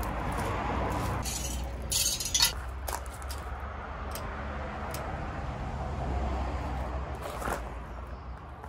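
Small metal parts clinking as they are handled at a car's wheel hub while an alloy wheel is refitted. The sharpest clinks come about two seconds in, with a few lighter clicks later, over a steady low background rumble.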